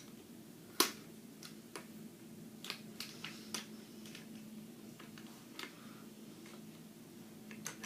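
Scattered clicks and taps of metal pull-up bar parts and hardware being handled during assembly, one sharper click under a second in and lighter ones after, over a faint steady hum.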